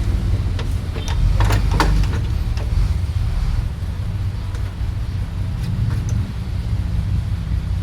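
Car engine idling steadily, with a few sharp clicks and knocks between one and two seconds in.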